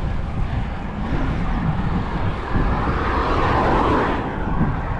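Steady rush of wind on the camera microphone and rolling bicycle noise while riding, with a louder swelling rush between about three and four and a half seconds in.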